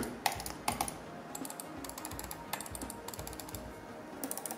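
Trackball mouse buttons pressed again and again, a string of short sharp plastic clicks, some in quick pairs. First on a worn Logitech M570 whose left button has developed play, then on a Perixx Perimice-520.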